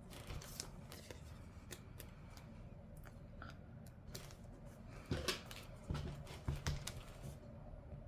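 Paper and sticker sheets being handled: scattered light clicks and rustles, with a louder cluster of crinkling about five to seven seconds in.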